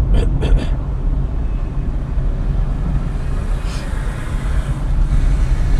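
Car driving slowly, heard from inside the cabin: a steady low engine and road rumble, with a few light clicks in the first second.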